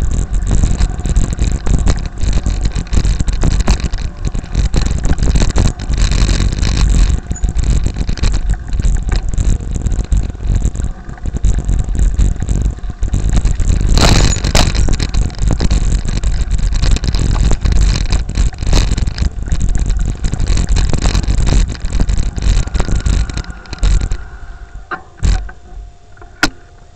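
Heavy rumbling noise and rapid crackles of wind and handling on a small camera's microphone, with brushing of leaves and grass as it is carried through vegetation. The noise falls away sharply about 24 seconds in, leaving a faint steady tone.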